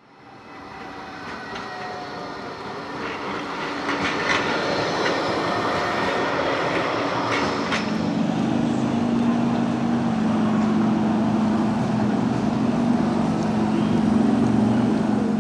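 Double-deck Blackpool Balloon tram running along street track, fading in with a few sharp clicks from wheels on the rails. From about halfway a steady motor hum comes up as the tram approaches.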